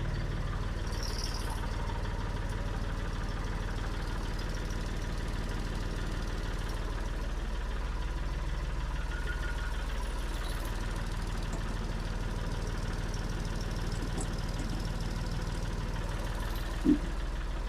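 An old engine idling steadily, warming up just after a hard cold start, with one brief knock near the end.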